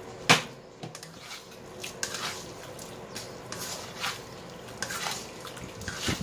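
Spatula stirring and scraping prawns, onions and chilli around a stone-coated nonstick wok. There is a sharp knock against the pan about a third of a second in, then a run of short scraping strokes.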